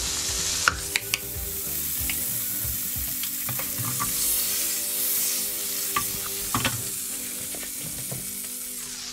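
Cold, hard margarine melting in hot olive oil in a frying pan, sizzling steadily. A spatula stirs it, with a few light clicks against the pan about a second in and again around six seconds in.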